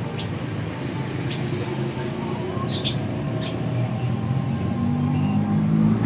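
Caged songbirds giving short, high chirps and whistles, scattered and a few at a time, over a steady low background rumble.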